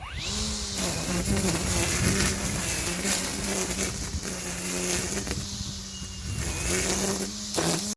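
EGO 56-volt battery-powered string trimmer running at speed: a steady electric whine that dips slightly in pitch now and then as the line cuts through tall weeds and grass.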